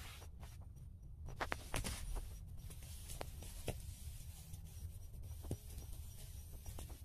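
Light rustling and scattered clicks of leaves and stems brushing against a handheld phone, over a steady low rumble.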